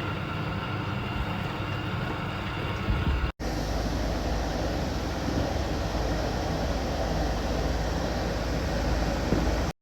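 Steady low noise of a pot of scent leaves boiling on the stove. It breaks off for an instant about a third of the way in and cuts off just before the end.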